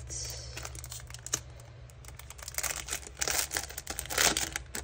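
Clear plastic packaging sleeve of a metal cutting die crinkling and crackling as it is handled, with scattered clicks, busiest in the second half and loudest about four seconds in.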